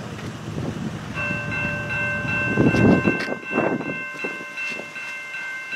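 CN diesel locomotive's multi-chime air horn sounding one long held chord, coming in about a second in, over a low rumble of the departing train that is loudest around the middle.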